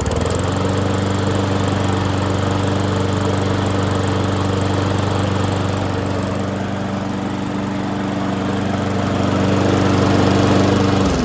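2011 Weed Eater 22-inch push mower's single-cylinder engine running steadily at speed, then cutting out sharply at the very end as the brake bail, on release, grounds out the ignition coil.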